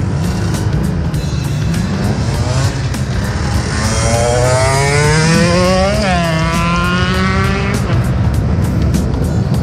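Honda SH125 scooter riding through city traffic, with steady engine and road noise. From about four seconds in, a whining tone climbs, peaks sharply about two seconds later, then falls away and fades before the end.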